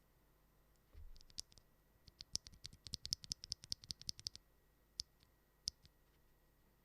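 Typing on a KBDfans KBD67 Lite mechanical keyboard with Wuque Studio MM switches (full POM housings, P3 stems) and PBT keycaps: a quick run of keystrokes for about three seconds, then two single key presses.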